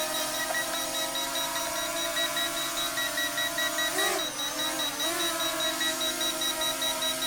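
ZLL SG107S drone hovering, its brushless motors and propellers humming steadily, the pitch dipping and rising about four seconds in as it shifts position. A rapid, even beeping runs over it: the obstacle-avoidance warning that an obstacle is detected.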